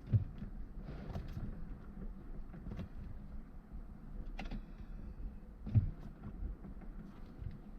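Two dull thumps, one right at the start and one nearly six seconds in, with scattered light clicks and knocks over a low rumble.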